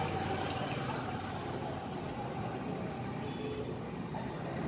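Steady background rumble of road traffic and engines, with no distinct sound from the lens fitting.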